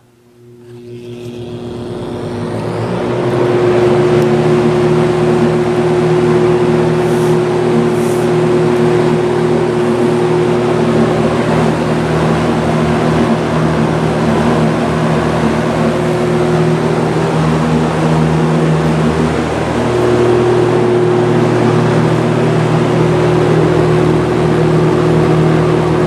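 Vintage Lakewood S-223 box fan with a Westinghouse motor, switched to high and spinning up over the first few seconds, then running steadily: a rush of air with a motor hum over it. The warmed-up motor hums quite loudly, which the owner is unsure is normal for these Westinghouse motors.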